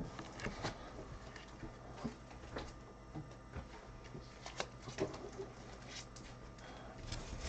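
Faint scattered soft clicks and taps of gloved hands handling trading cards and packs on a table, over a low steady room hum.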